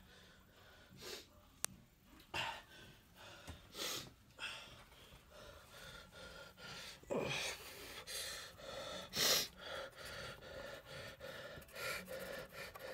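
Quiet room with a person's scattered soft breaths and rustles, and one sharp click about a second and a half in.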